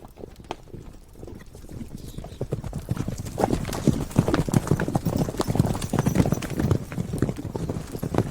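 Horse hooves clip-clopping in a dense, irregular run of hoofbeats. They grow louder over the first three seconds or so.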